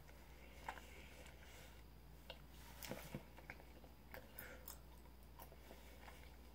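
Faint chewing of a gummy vitamin: a few soft, scattered mouth clicks over near silence.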